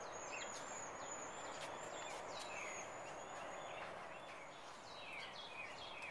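Small birds chirping and singing with many short, high notes, and a run of falling whistles in the second half, over a faint steady hiss of outdoor background noise.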